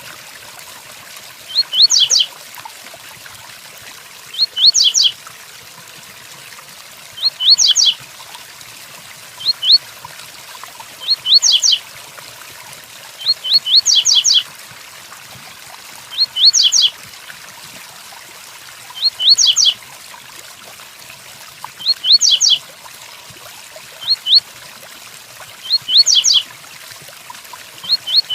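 Double-collared seedeater (coleiro) singing the 'Tui Tuí' song, a short phrase of quick, high, downward-slurred notes repeated about every two and a half seconds, over a steady rain hiss.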